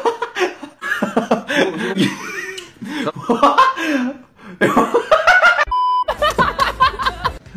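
A young man laughing hard in repeated bursts, with a brief pause about halfway. A short steady beep-like tone sounds about three-quarters through, and then a different voice starts laughing.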